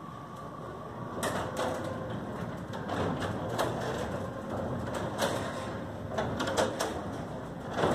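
Glass-panel overhead sectional door opening on a variable speed DC drive. A faint steady whine comes first, then from about a second in a run of irregular clicks and knocks as the sections roll up the tracks.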